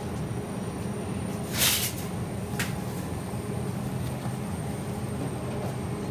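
Steady low background hum, with a short scraping rustle of a cardboard cereal box about one and a half seconds in and a light tap on it about a second later.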